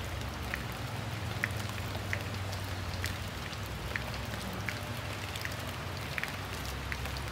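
Flooded river rushing steadily, a constant hiss like heavy rain over a low rumble, with faint short high ticks now and then.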